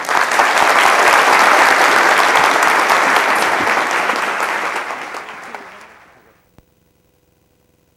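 Audience applauding, a dense clapping that starts at once and fades out from about four seconds in until it is gone at about six seconds.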